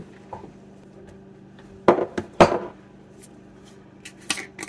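Kitchen dishes and utensils clinking while eggs are seasoned in a bowl: two sharp knocks about half a second apart, then a couple of lighter taps near the end.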